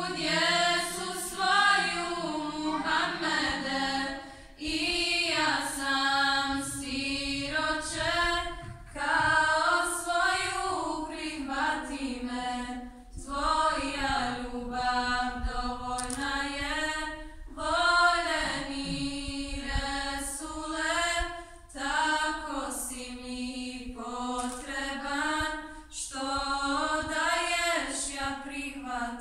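Women's choir singing a devotional song a cappella, one melody line in slow phrases with short breaks between them. A low held note sounds under the voices for the first few seconds.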